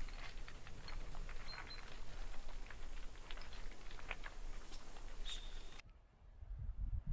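Loose stones clicking and clattering irregularly under a herd of Spanish ibex crossing a scree slope, over a steady hiss, with a few brief high whistling notes. About six seconds in the sound cuts off abruptly to a quieter low rumble.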